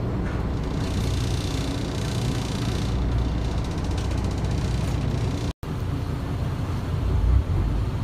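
Steady low rumble of a small boat underway, its engine mixed with wind buffeting the microphone, broken by a very short dropout a little past halfway.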